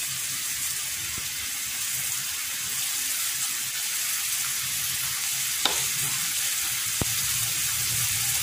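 Shrimp frying in garlic butter with onion in a frying pan, a steady sizzle. Two sharp clicks come through it, the first just over halfway and the second about a second later.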